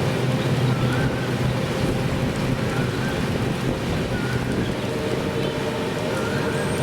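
Express train running past in heavy rain: a steady low rumble under the hiss of rain and wind on the microphone. A short warbling chirp repeats every second or two.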